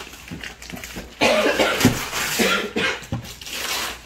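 Gift wrapping paper being torn off a box by hand: a burst of ripping and rustling paper starting about a second in.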